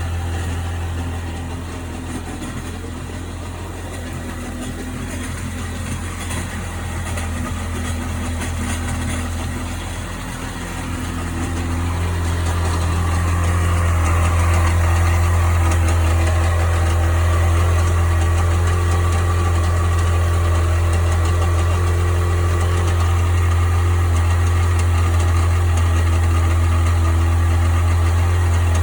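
1998 Sea-Doo GS 720's two-stroke twin engine running steadily, louder from about twelve seconds in and then holding. Its owner is trying to pin down a strange noise in it, from the engine or the jet pump.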